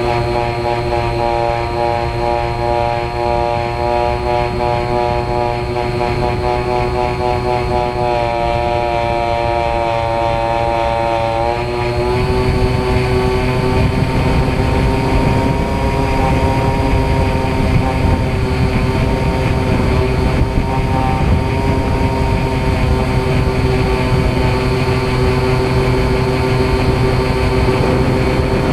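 Motor and propeller of an RC FPV airplane in flight, heard from its onboard camera with wind rushing past. The engine note is steady, then about twelve seconds in it steps up in pitch and gets louder as the throttle is opened, with more wind noise.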